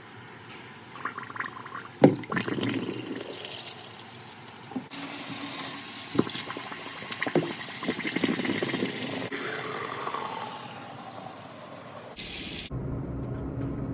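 Water running from a plumbing fixture, with a few knocks early on. About five seconds in the flow grows louder and steadier, and near the end the sound changes abruptly.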